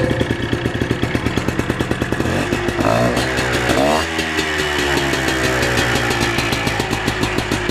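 Minsk motorcycle's two-stroke single-cylinder engine running with a fast, even firing pulse. It is revved up to about four seconds in, then the revs fall away. The owner says the piston and rings are worn.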